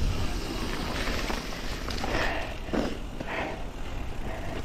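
Mountain bike rolling down a dirt trail: the tyres crunch over packed dirt and dry leaves, with a steady low rumble of wind on the microphone and a few short scuffs and rattles about two to three seconds in.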